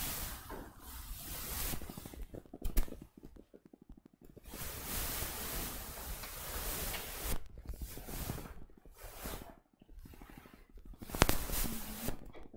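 Rustling and handling noise on a microphone in irregular bursts, with two sharp knocks, one about three seconds in and one near the end.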